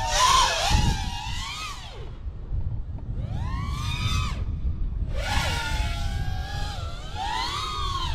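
A 5-inch FPV quadcopter's brushless motors (iFlight Xing Camo 2207 1800KV) and propellers whining. The pitch sweeps up and down in several bursts as the throttle is punched and cut through flips and rolls, loudest in the first second. Wind buffets the onboard camera's microphone throughout as a low rumble.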